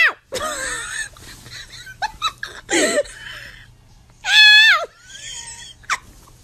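Cats meowing: a wavering meow just after the start, a few short cries around two to three seconds in, and a loud, held meow that drops in pitch at its end about four seconds in.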